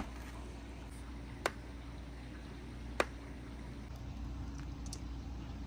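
Glass marbles being set down one by one on a perforated board. Each lands with a sharp click, three times about a second and a half apart, over a steady low hum.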